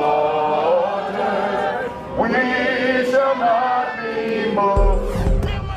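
A group of voices chanting and singing in unison, in long held phrases with a short break about two seconds in. A low rumble joins near the end.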